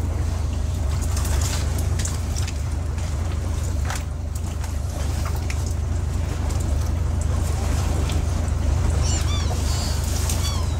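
Small fishing boat's engine running steadily with a low hum, with light clicks and rustling as the catch is sorted by hand on deck. Near the end, a few short gull calls.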